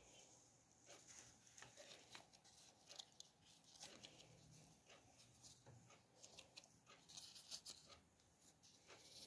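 Near silence, broken by faint rustling and light clicks of stiff houseplant leaves being brushed and turned by hand.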